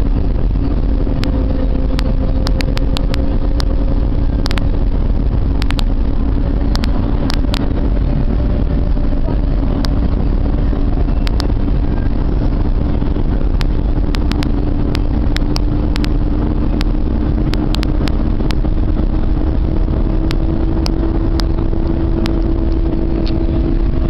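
Steady engine and road noise of a moving road vehicle heard from inside the cabin, with the engine note slowly rising in pitch and frequent short sharp clicks.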